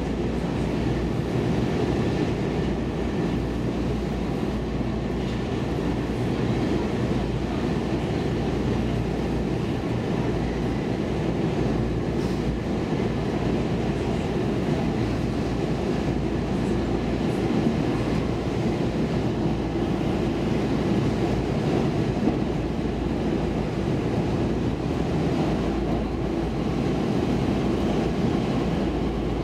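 Inside a Stockholm Metro C14 subway car: the train running on the rails, an even, steady rumble of wheel and track noise with a faint steady whine above it.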